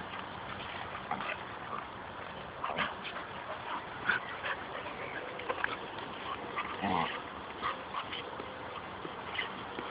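Two pit bulls play-wrestling: scattered short scuffles and knocks, with a brief dog whimper about seven seconds in.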